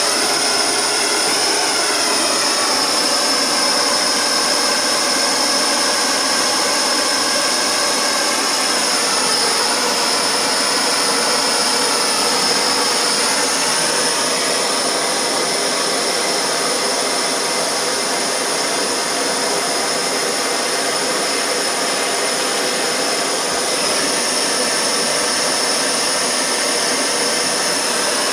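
Propane plumbing torch burning with a steady roaring hiss, as used to solder copper pipe, with a faint high whistle over the flame.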